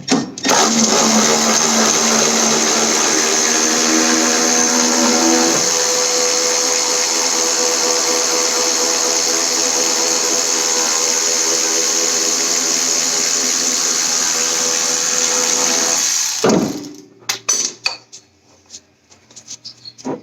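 Milwaukee cordless power tool running steadily for about sixteen seconds, its tone changing about five seconds in, then stopping. A few sharp clicks and clatters follow.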